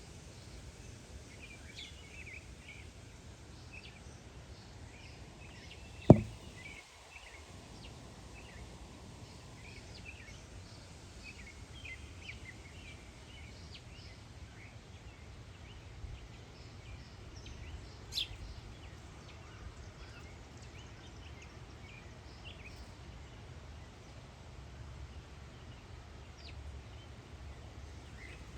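Small songbirds chirping, many short chirps scattered throughout over a steady low rumble, with one sharp knock about six seconds in and a brief sharper call near the middle.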